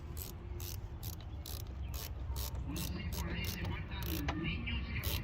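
Ratchet socket wrench being worked back and forth, its pawl clicking in quick runs about two to three times a second.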